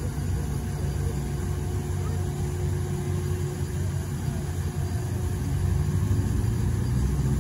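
Low, steady rumble of a cargo vessel's engines as the ship moves out of the lock under power, growing a little louder near the end.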